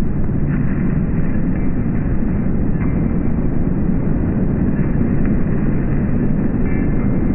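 Slowed-down outdoor field audio with added reverb: a steady, deep rumbling noise with no clear source, with a few faint ticks and thin high tones near the end.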